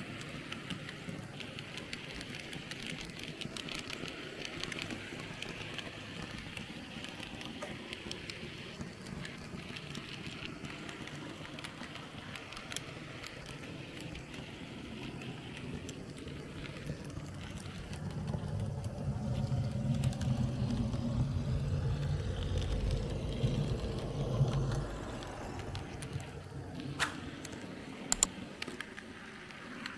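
Märklin H0 model train running on the layout's track, a steady rolling hum whose low rumble swells for several seconds in the second half, as the train comes close and passes, then fades. A few sharp clicks near the end.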